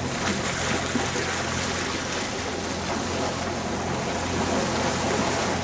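A sailboat's auxiliary engine running steadily, a low even hum under a haze of wind and water noise; the hum drops away near the end.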